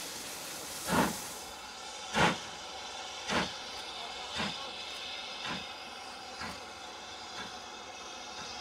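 Standard Class 5 steam locomotive's exhaust beats as it pulls away: seven slow chuffs about a second apart, coming a little quicker and fading steadily, over a steady hiss of steam.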